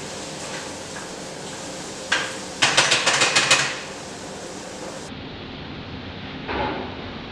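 A spatula knocking and rattling against a frying pan while stirring sautéing shrimp: one sharp knock about two seconds in, then a quick run of taps lasting about a second, and a softer knock near the end.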